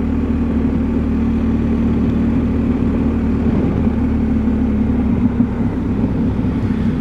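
BMW R1250 motorcycle's boxer-twin engine running steadily at low speed in city traffic, under wind and road noise.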